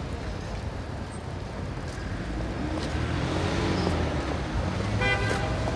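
Street traffic: a vehicle's engine and tyres grow louder as it passes, about halfway through. A short pitched tone sounds near the end.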